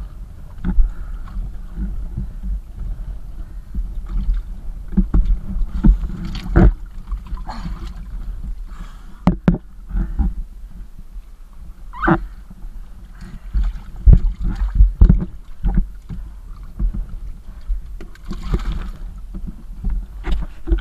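Water sloshing and splashing in a plastic basin as hands work in it, with irregular knocks and thumps against the basin.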